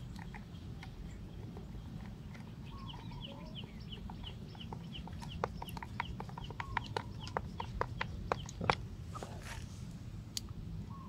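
Sharp, irregular clicks and taps from about five to nine seconds in, from handling an electric drill and its newly fitted plastic keyless chuck. Behind them, a bird chirps short, evenly repeated notes over a low steady hum.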